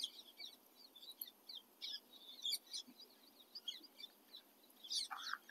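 Faint chirping of small birds: many quick, high calls, some sliding up or down in pitch, with a short warbling trill partway through.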